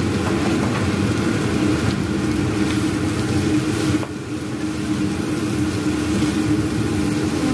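Corned beef and shredded cabbage sizzling in a hot frying pan as they are stirred with a wooden spoon, with a few light knocks of the spoon. A steady mechanical hum runs underneath.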